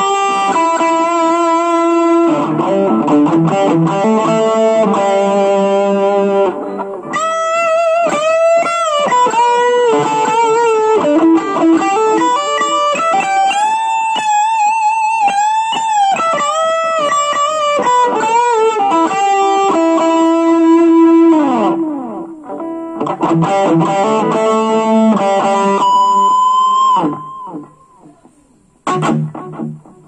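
Electric guitar played through a Blackstar Fly 3 3-watt mini amplifier: a melodic lead line with sustained notes, string bends and vibrato. It dies away a few seconds before the end, with one short note after.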